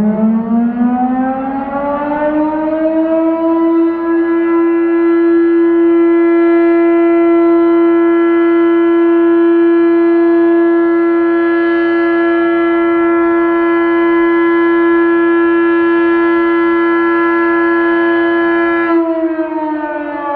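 Federal Sign & Signal Model 7 tornado siren winding up, its pitch rising over the first few seconds, then sounding a steady loud tone rich in overtones, and starting to wind down, falling in pitch, near the end.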